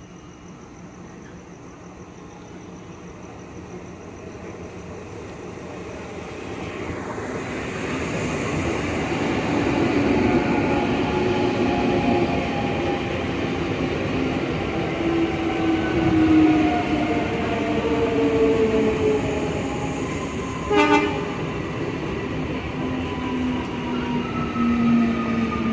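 ICF Medha electric multiple unit train pulling into a station. The rumble of wheels on rails grows louder over the first ten seconds, then the electric traction motors whine, falling steadily in pitch as the train slows. There is a short toot about 21 seconds in.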